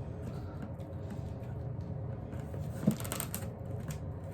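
A cardboard mail package being handled and pried open: a sharp knock about three seconds in, followed by a brief crackle of packaging.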